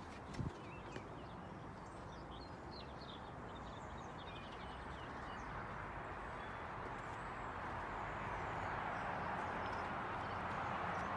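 Steady outdoor background noise that grows louder in the second half, with faint bird chirps in the first few seconds and one soft thump about half a second in.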